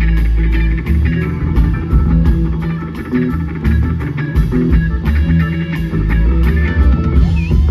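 Live blues-rock band playing: electric guitar over bass guitar and drums, with a steady cymbal beat. Near the end the guitar starts sliding notes up and down.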